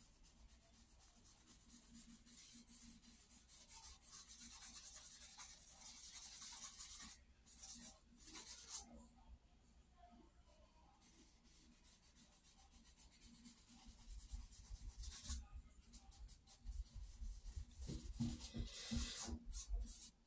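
Stick of charcoal scratching and rubbing on sketchbook paper in bursts of strokes. The strokes are loudest from about four to nine seconds in and again near the end.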